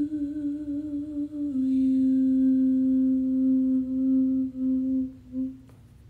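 A woman singing unaccompanied holds the hymn's last note as a long hum, wavering slightly at first, stepping down a little about a second and a half in, then held steady with a couple of brief breaks before it stops near the end.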